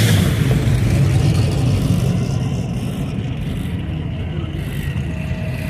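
A vehicle engine running with a steady low rumble, mixed with road and wind noise, while cruising.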